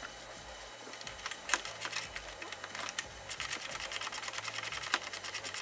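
Ratchet wrench clicking as it tightens the bolt on the 12V battery's hold-down clamp. The clicks are scattered at first, then run fast and even from a little past halfway.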